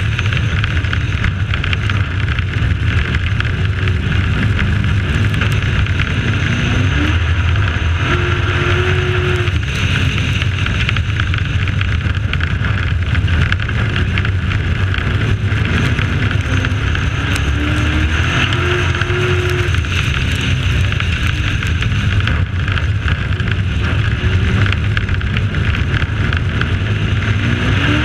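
Dirt-track race truck's engine running hard at race speed, heard from the truck itself. Its pitch rises three times as it accelerates out of the turns on each lap.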